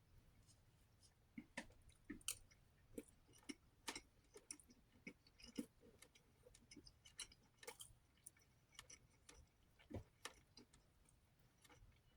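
Faint, irregular wet clicks and smacks of someone chewing a mouthful of rice and chicken, a few a second.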